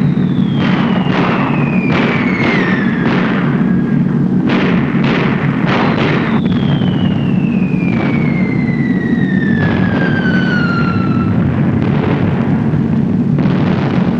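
Falling-bomb whistles dropping steadily in pitch, two long ones, with a string of about a dozen bomb explosions, over the steady drone of a B-17 Flying Fortress's four engines.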